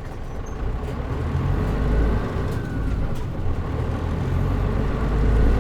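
Mitsubishi Fuso Aero Star city bus (KL-MP37JM) running along the road, its diesel engine rumbling and growing louder toward the end as it pulls under load, with a faint whine rising and falling in the middle.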